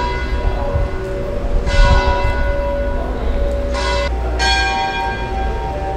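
Church bells ringing: separate bell strokes a second or two apart, two of them close together near the middle, each note ringing on and overlapping the next.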